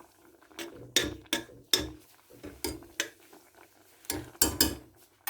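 Kitchen utensil knocking and clinking against a cooking pot of oatmeal porridge, about nine irregular knocks, some of them with a dull thud.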